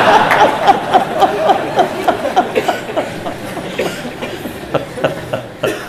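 A man laughing heartily into a microphone in quick repeated pulses, about four a second, gradually fading toward the end.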